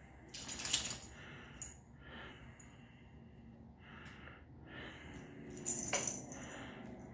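Small metallic jingles and clinks from Yorkshire terriers moving about, once about half a second in and again near six seconds, with soft snuffling puffs between.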